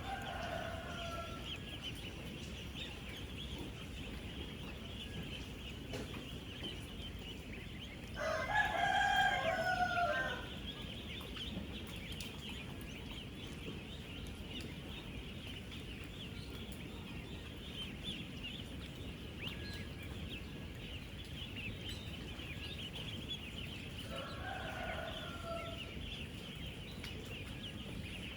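A large flock of ten-day-old ducklings peeping all together in a dense, steady, high chatter. A louder, lower call from a bigger bird, about two seconds long, cuts in three times: at the start, loudest about eight seconds in, and again near the end.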